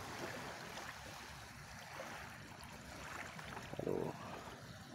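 Small, gentle sea waves lapping and washing over a shell-gravel shoreline, a soft, even wash.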